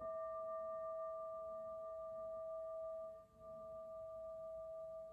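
A singing bowl struck once, its ring holding steady with a few clear overtones and wavering in loudness, dipping twice.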